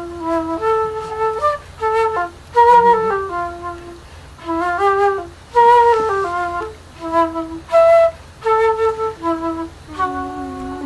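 Flute playing a simple melody of short notes stepping up and down, with brief pauses between phrases.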